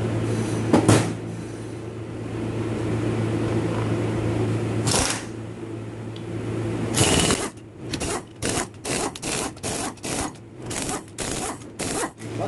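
Tool work on a disassembled automatic transaxle's differential. A steady low hum with a click, then a quick run of short mechanical rattles, about two to three a second, through the second half.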